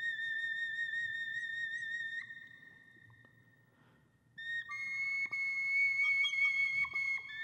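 Background music of long, high, whistle-like held notes with a slight waver. They fade out after about two seconds, a short near-silent gap follows, and a new set of held notes comes in about four and a half seconds in.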